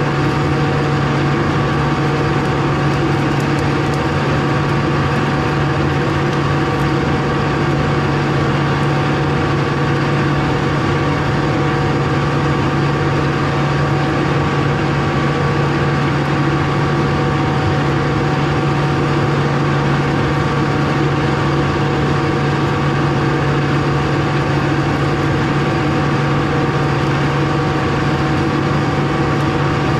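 Tractor engine running at a steady speed, a constant low drone with a thin steady whine on top and no change in pitch throughout.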